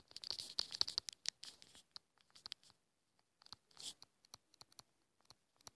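Faint stylus strokes on a tablet screen during handwriting: an irregular run of light taps and short scratches, bunched in quick clusters with brief gaps.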